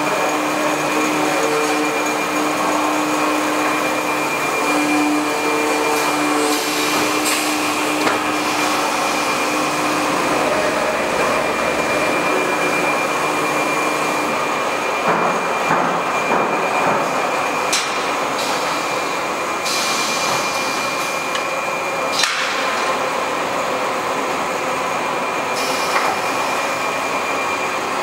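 Automatic multi-deck quilting machine running: a steady mechanical whirr with a thin high whine throughout and a lower hum that fades out about halfway. A few sharp clicks and knocks come at intervals as the gantry and fabric-loading parts move.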